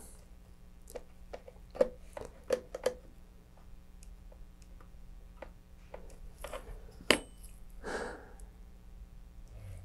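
Light clicks and taps of a metal dental pick working inside a thin plastic fin fairing, pressing epoxy clay into the gaps around the fin. The sharpest click comes about seven seconds in, followed by a short scrape.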